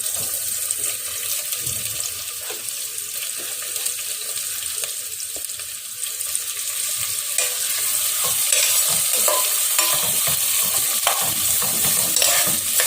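Sliced onions and green chillies sizzling in hot ghee and sunflower oil with cumin, stirred in the pan with a spoon. The sizzle grows louder about halfway through, with scraping clicks of the spoon against the pan.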